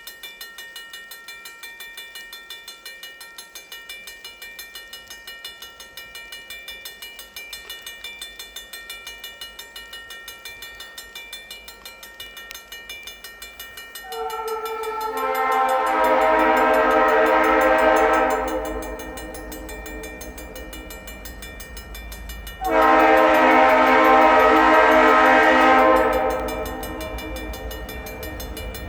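A grade-crossing warning bell ringing with a fast, regular beat, then the approaching Mass Central locomotives' multi-note air horn sounding two long blasts. The first swells in about fourteen seconds in, and the second begins about nine seconds later. A low locomotive engine rumble builds underneath.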